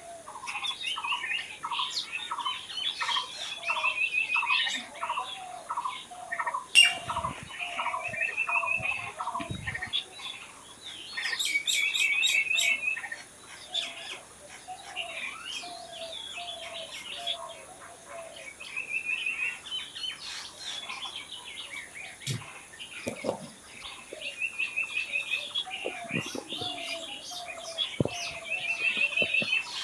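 Several wild birds singing and chirping together: a steady series of lower repeated notes through the first nine seconds or so, a short fast trill that comes back every few seconds, and many higher chirps over the top. A sharp click about seven seconds in, and a few dull thumps.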